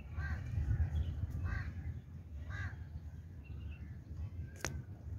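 Harsh bird calls, three in a row about a second apart, over a steady low rumble, with a sharp click near the end.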